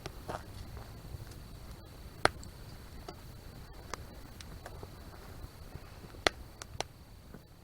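Wood fire crackling, with sharp single pops scattered through a steady low rumble; the loudest pops come about two seconds in and again just after six seconds.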